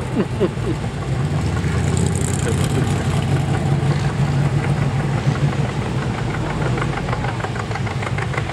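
Tractor engine running steadily with a low, even rumble.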